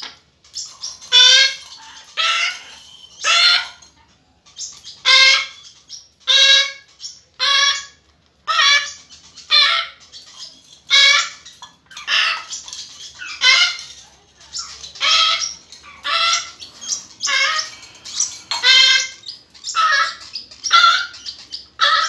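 Young African grey parrot chicks squawking over and over, about one harsh call a second: food-begging calls while they are hand-fed.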